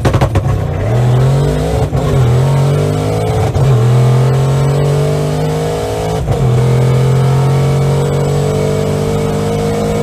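Turbocharged 363 stroker small-block Ford V8 at full throttle through a quarter-mile drag pass, heard from inside the car. It leaves the line with a rapid crackle, then climbs steadily in pitch through each gear with three sharp drops as the TKX manual gearbox is upshifted, about two, three and a half and six seconds in.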